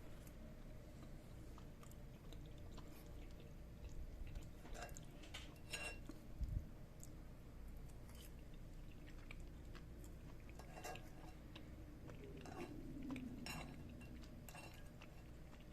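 Someone chewing quietly, with a few light clicks and clinks of cutlery on a plate and a soft thump about six seconds in.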